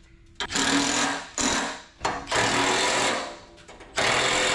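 Cordless power tool run in four short bursts on a steel truck step, each lasting roughly half a second to a second.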